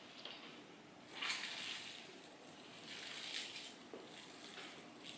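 Faint wet squishing of hands kneading a sticky ground chicken meatball mixture in a bowl, in a few soft swells.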